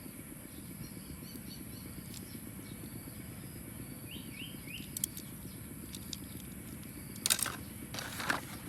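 Steady low background rumble with three faint bird chirps about halfway through, and two short rustling clicks near the end.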